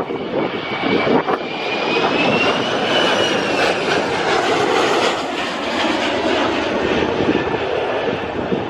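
Jet airliner's engines passing close by: a loud rushing noise with a high whine that climbs to a peak about three seconds in and then slowly falls away.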